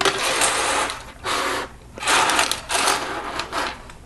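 Loose plastic Lego pieces and their packaging being handled, in four short noisy bursts, each under a second long.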